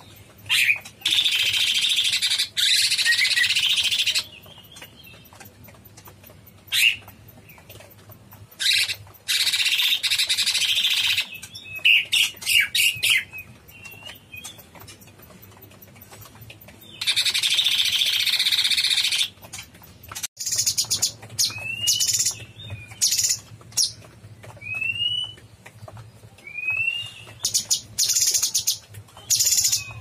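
Blue-winged leafbird (cucak cungkok) singing vigorously: long, rapid, dense chattering phrases of two to three seconds, three times, with short chirps between them and, near the end, several short rising whistles.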